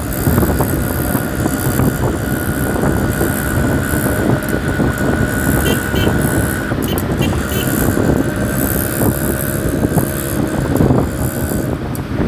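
Engine and road noise of city traffic heard from a moving vehicle, with wind rumbling on the microphone. A faint steady whine runs through most of it, broken briefly in the middle.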